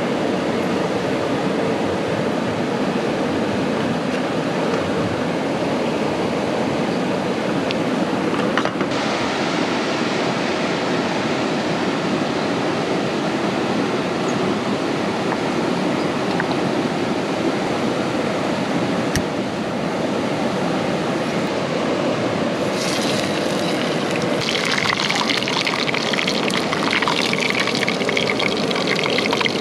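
Steady rushing water noise that becomes brighter and denser about three quarters of the way through.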